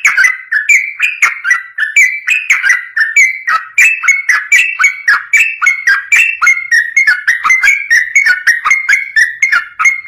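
Yellow-vented bulbul (trucukan) singing a long, fast, unbroken run of short bubbling whistled notes, several a second, in the rapid 'ropel' style used as a training song for caged bulbuls.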